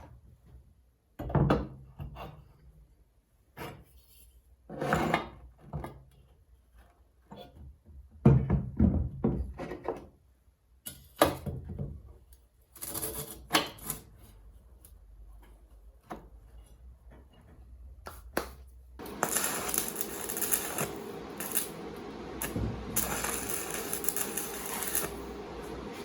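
Metal parts and tools clinking and knocking on a workbench as they are handled, a dozen or so separate knocks. About three-quarters of the way in, a steady noisy working sound with a faint hum sets in and carries on.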